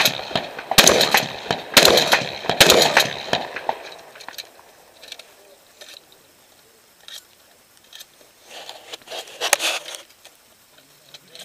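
Shotgun shots fired in quick succession, about three within the first three seconds, each with a ringing echo. Then comes a quieter stretch of faint clicks and handling sounds, and another loud report near the end.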